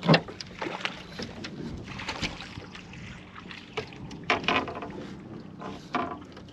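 Knocks and taps on a boat deck, the loudest a sharp knock right at the start, followed by a few lighter clicks, over a low steady hiss of wind and water.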